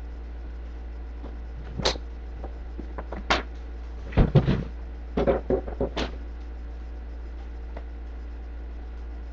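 A few scattered knocks and clatters of things being moved about, with a quick cluster of them in the middle, over a steady low electrical hum.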